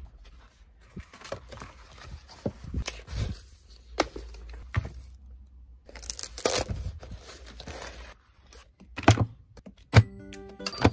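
Paper workbooks being handled: pages rustling and flipping, and a section pulled away from the workbook's binding with a long ripping sound about six seconds in. A few sharp knocks near the end.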